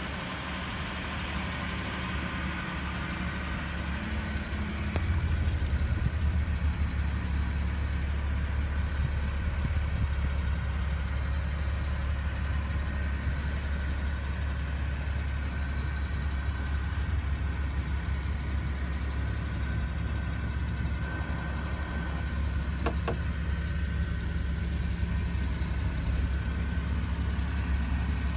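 Suzuki Carry kei truck's small three-cylinder engine idling steadily, a low, even hum that gets louder about five seconds in.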